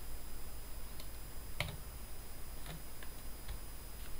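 Slow typing on a computer keyboard: about five separate keystrokes, roughly one a second, over a low steady hum.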